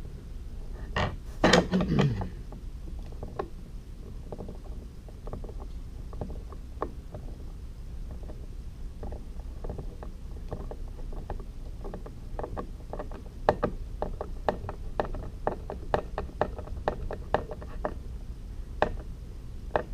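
Screws being turned in by hand with a screwdriver into undersized pilot holes drilled in plastic: a run of small irregular clicks and creaks, with a few louder knocks about a second and a half in.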